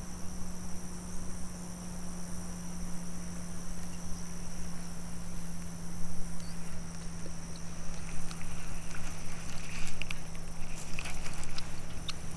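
Outdoor pond-side ambience: a steady high insect drone over a constant low hum and low rumble. From about eight seconds in come scattered small clicks and rustles.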